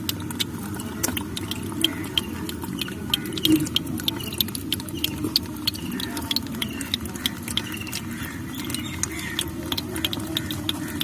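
Fish mouths gulping at the water's surface, making irregular wet clicks and pops several times a second over a steady low hum.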